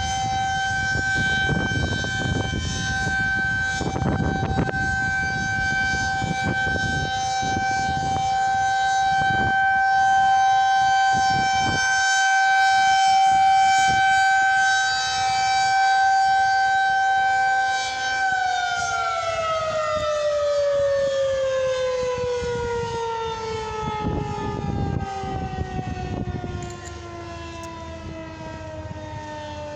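Civil defense tornado warning siren sounding a steady alert tone at one held pitch, then, about 18 seconds in, winding down with its pitch falling steadily as the rotor slows at the end of the test.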